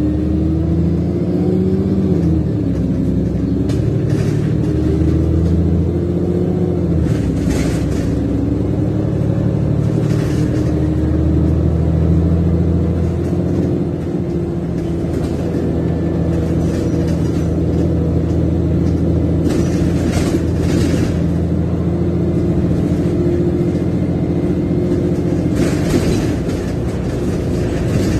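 VDL DB300 double-decker bus with Wright Gemini 2 body on the move, its engine heard from the upper deck. The engine note rises and drops between steadier stretches, with a few brief rattles or knocks along the way.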